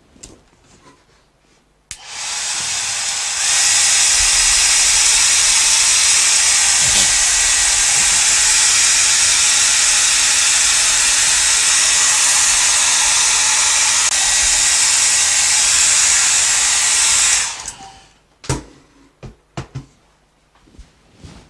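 Handheld hairdryer blowing to dry wet watercolour paint: it switches on about two seconds in, steps up to a higher setting a second or so later, runs steadily with a hiss, then shuts off near the end, followed by a few light knocks.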